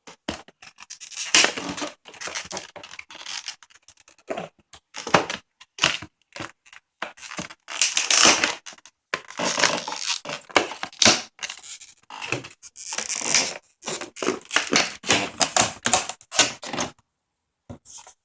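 Cardboard speaker box and its inner packaging being pulled open and handled: irregular scraping, crinkling and tearing in quick uneven bursts, with a short pause near the end.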